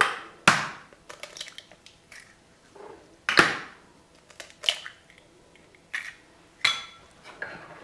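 Eggs being cracked against the rim of a stainless steel mixing bowl: a series of sharp knocks, about six, the loudest a little over three seconds in.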